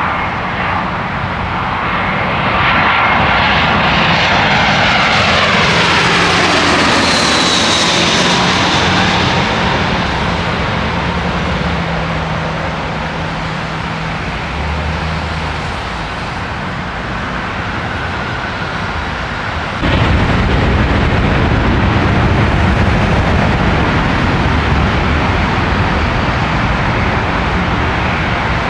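Jet airliner passing low overhead on landing approach, its engine whine falling steadily in pitch as it goes by. A heavier low rumble sets in suddenly about two-thirds of the way through.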